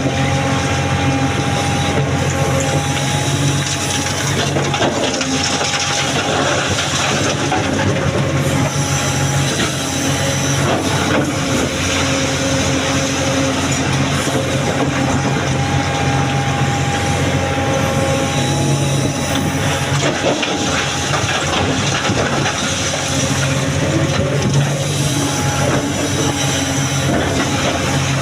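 Excavator's diesel engine and hydraulics working steadily under load while loading stone, with a higher whine that comes and goes several times.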